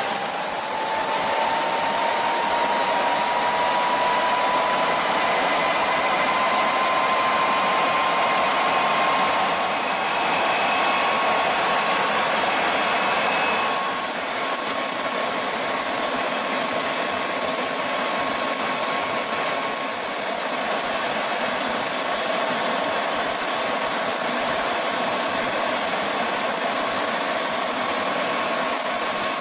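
Large airliner turbofan engine running during an engine-wash run, which blows out the loosened dirt and dries the engine. Its whine rises over the first couple of seconds, then holds steady over a loud rush of air.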